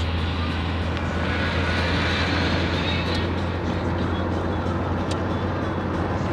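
Steady engine and road noise inside a moving car's cabin: a constant low drone under an even hiss of tyres on the road.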